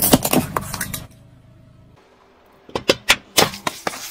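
Car tyre rolling over and crushing brittle objects. A dense run of crackling snaps comes in the first second, then a short lull, then a series of sharp cracks near the end.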